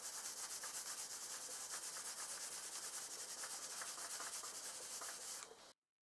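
Clothes iron sliding over a sheet of paper on a table: a steady rubbing hiss with a fine even pulse, cutting off abruptly near the end.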